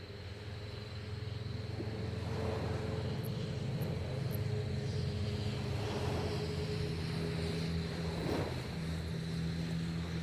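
A motor engine running steadily, swelling in over the first couple of seconds and then holding, with waves washing in the background.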